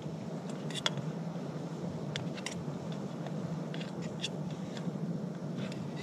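Pieces of sharptail meat searing in a pot on a camp stove: a steady hiss and sizzle, with a few sharp clicks scattered through.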